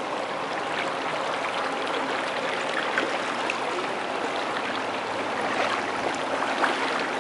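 Fast-flowing floodwater rushing in a steady wash, with faint small splashes, as it runs against someone wading through a strong current.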